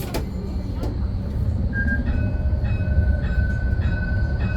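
Modern tram running along its track, heard from inside the car: a steady low rumble that grows louder, joined about two seconds in by a steady high whine that breaks off and resumes at short regular intervals.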